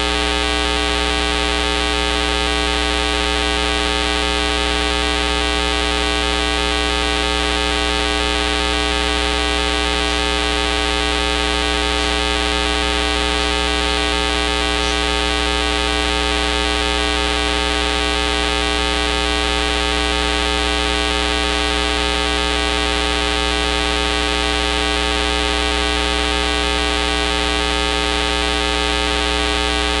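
A steady electrical buzz, one low tone with many even overtones over a hiss, unchanging throughout.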